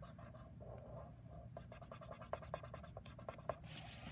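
Felt-tip marker scratching on paper as a small shape is coloured in, with a quick run of short strokes from about one and a half seconds in. Near the end there is a short swish as the paper is shifted.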